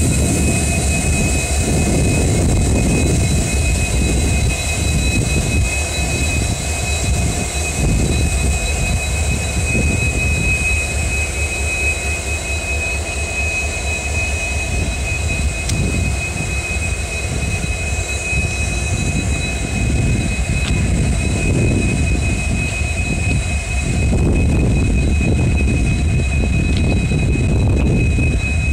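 Diesel locomotive engine running loudly, with a steady high whine over a heavy low rumble, as a freight train of flat wagons rolls past.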